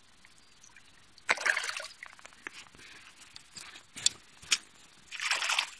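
Water splashing and sloshing in shallow, grassy marsh water in short bursts, about a second in and again near the end, with two sharp clicks between.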